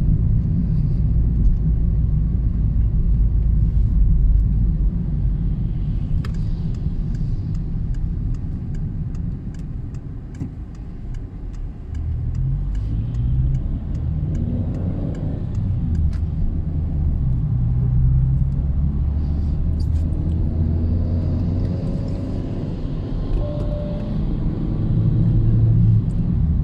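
Car driving on a road: a steady low rumble of engine and road noise that eases off about ten seconds in, then the engine note rises as the car picks up speed again, with another rise later.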